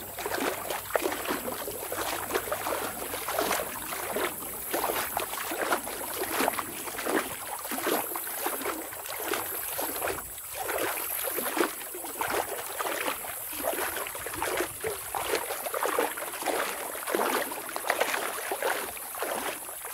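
Legs wading through shallow river water: a steady run of irregular sloshing splashes, one after another with each stride.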